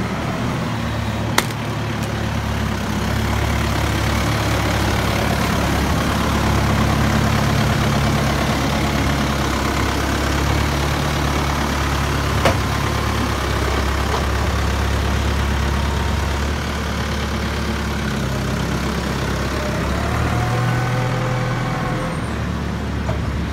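Diesel farm tractors running steadily close by, the Same Explorer 85 front-loader tractor nearest, with two sharp knocks, one about a second in and one near the middle.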